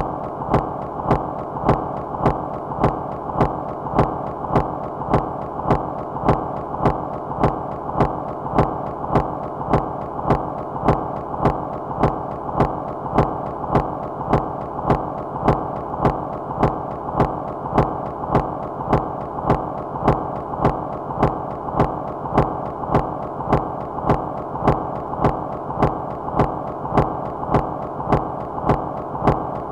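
Minimal, micro-industrial electronic noise music: a thick, steady wash of low and middle noise with a sharp click repeating evenly about every 0.6 seconds.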